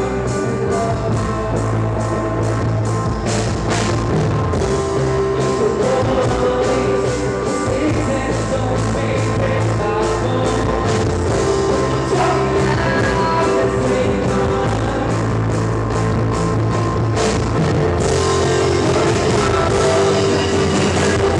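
A live rock band playing with electric guitar, electronic keyboard and drum kit under a steady drum beat, with vocals over it.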